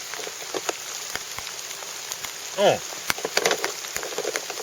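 A folding knife's blade is pushed into a target in a piercing test, giving scattered cracking clicks and knocks, bunched together about three seconds in, over a steady hiss.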